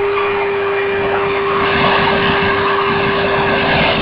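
Performance Power 1300 W PP20 wet and dry vacuum cleaner running in dry mode: a steady motor whine over a rush of air through the hose, swelling slightly about halfway through.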